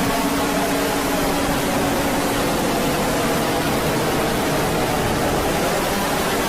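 Loud, steady static hiss from an emergency alert broadcast, filling the gap between repeats of the alert message. Faint steady tones from the alarm fade out under the hiss within the first couple of seconds.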